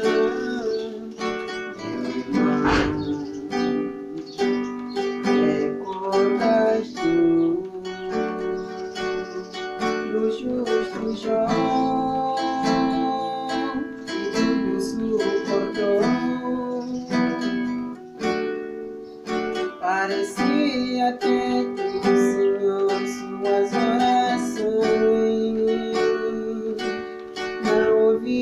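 Background music led by a plucked acoustic string instrument, with a steady flow of plucked and strummed notes.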